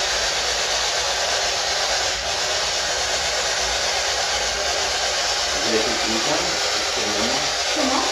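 Spirit box static: a steady, loud hiss of radio noise, with faint voice-like fragments breaking through about five and a half seconds in.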